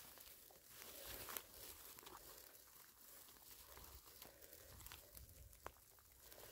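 Faint rustling and crackling on a forest floor, with a few light clicks and snaps, close to silence overall.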